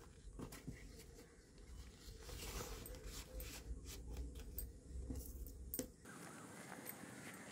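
Fresh banana leaves rustling and crinkling under hands folding and pressing a leaf-wrapped parcel, with small irregular clicks. About six seconds in the sound changes to fainter handling as the parcel is tied with fibre string.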